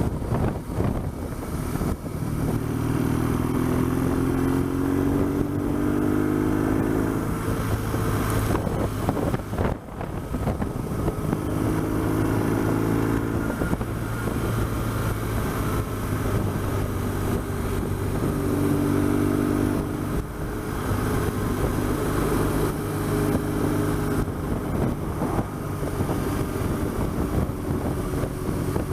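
BMW R1200GS motorcycle's boxer-twin engine under way, its pitch rising several times as it accelerates through the gears, over a steady rush of wind noise.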